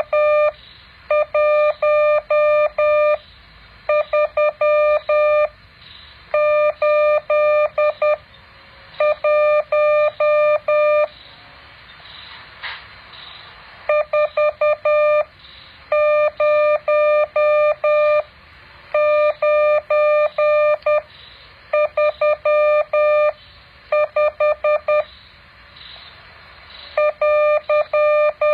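Morse code practice tones: a steady mid-pitched beep keyed on and off in quick dots and dashes, sent in groups of one to two seconds with short pauses between them and one longer pause midway.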